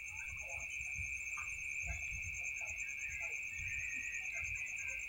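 Background noise with no speech: a steady high-pitched whine, a low rumble and a few faint scattered sounds.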